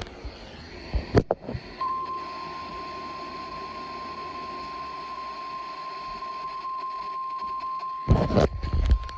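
A single steady beep-like tone just above 1 kHz begins about two seconds in and holds without change: the kind of alarm tone the National Weather Service sends ahead of a warning on weather radio. A sharp click comes just before it, and a loud thump shortly before the end.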